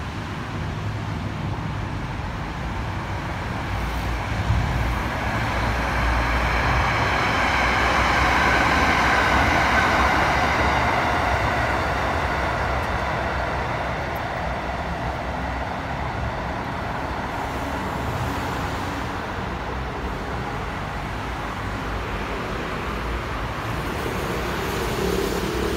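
Hitachi-built Red Line electric commuter train running past on an elevated concrete viaduct: a whining hum that swells over several seconds and fades again by about fourteen seconds in. Underneath it is a constant rumble of road traffic.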